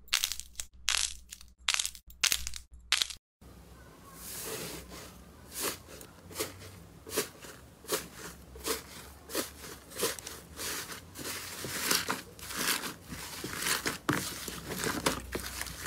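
Hands squishing and tearing slime. First a pink foamy slime gives a few sharp squishes. After a short break, a blue fluffy slime in a plastic tub is pressed and torn, with a squish about every half second.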